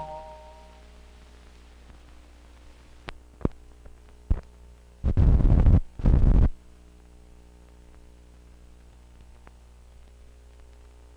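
The last chord of the jingle dies away, leaving an old film soundtrack's steady low hum. Over the hum come a few sharp clicks and then two loud bursts of rough noise about a second apart, typical of leader and splices running through a projector's sound head between commercials.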